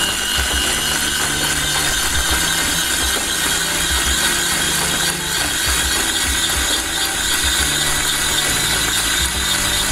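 Electric hand mixer running at a steady speed with a constant motor whine, its beaters whisking eggs into a butter-and-sugar cake batter.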